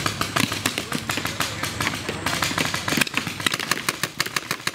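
Paintball markers firing: a rapid, irregular string of sharp pops, several a second.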